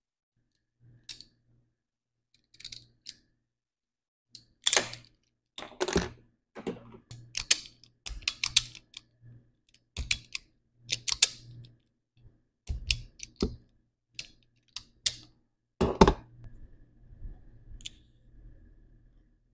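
Irregular clicks and clatter of hard tools and small parts being handled, from a wire stripping and crimping kit, with the loudest knocks about five, six and sixteen seconds in.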